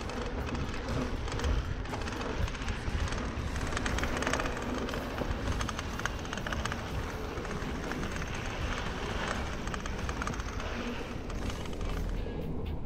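Giant Trance full-suspension mountain bike riding down a dry dirt singletrack: a steady rush of wind on the microphone and tyre noise, with frequent small clatters and knocks from the bike over bumps.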